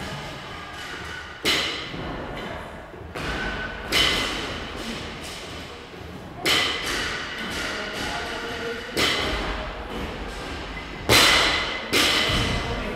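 Six heavy thuds with echoing tails, about every two and a half seconds, the loudest near the end: a barbell loaded with rubber bumper plates being dropped on a rubber gym floor and an athlete landing from jumps over it.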